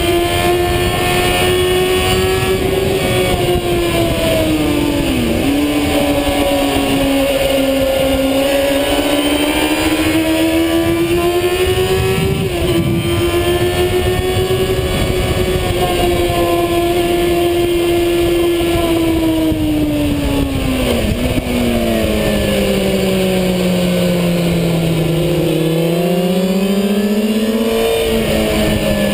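Racing motorcycle engine heard onboard, running hard at high revs, its pitch rising and falling through the corners. It dips sharply three times, briefly, and near the end falls steadily as the bike slows for a corner, then climbs again, with a rush of wind underneath.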